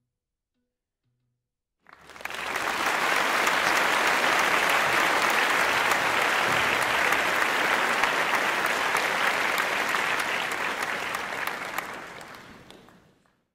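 Applause, many hands clapping at once: it starts suddenly about two seconds in, holds steady, then fades away over the last second or so.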